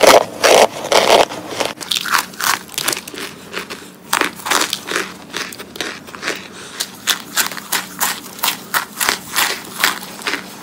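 Chunks of packed cornstarch being bitten and chewed close to the microphone: a quick run of crisp crunches, several a second, loudest in the first second.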